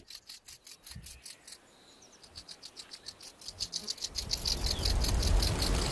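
Locusts making a rapid, even train of high-pitched clicking chirps, about ten a second, quiet at first. From about four seconds in, a low rumble swells up underneath and the whole sound grows louder.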